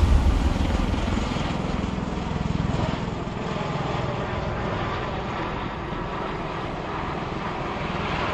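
Large military rotorcraft running overhead, a steady heavy rotor and turbine drone with a rapid low beat. It eases slightly over the first few seconds, then holds steady.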